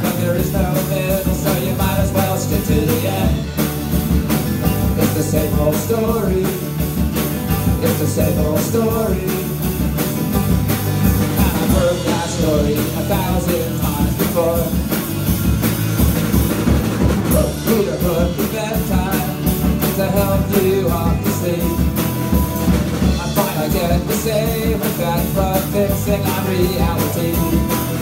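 Live rock band playing: electric guitars, bass guitar and drum kit, with a voice singing over a steady drumbeat.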